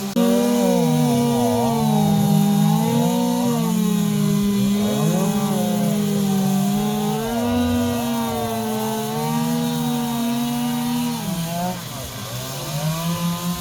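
Chainsaw carving wood at high revs, its engine pitch wavering up and down as the chain bites and eases. The revs drop for a moment near the end.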